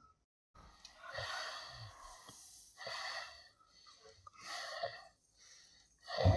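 A person snoring: four wheezy, rasping breaths, roughly one every second and a half.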